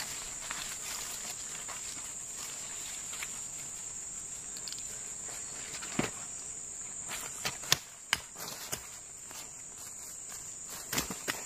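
Steady high-pitched chirring of insects, with scattered sharp snaps and rustles of leafy plant stems being picked and cut by hand. The snaps come one at a time, a few near the middle and more near the end.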